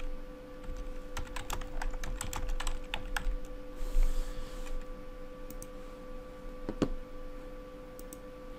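Typing on a computer keyboard: a quick run of keystrokes in the first half, then a few scattered clicks, over a steady faint hum.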